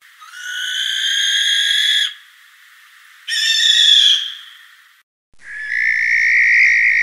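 Barn owl giving three long screeching calls, each lasting one to two seconds with short gaps between. The last one cuts off abruptly.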